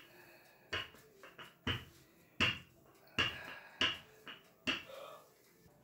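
Wooden rolling pin being pushed back and forth over pastry dough on a table, giving about six sharp knocks a little under a second apart, with softer ones in between.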